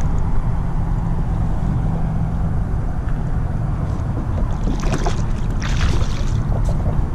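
A small hooked shark thrashes and splashes at the water's surface beside a kayak in two short bursts about five seconds in, over a steady low rumble of wind and water.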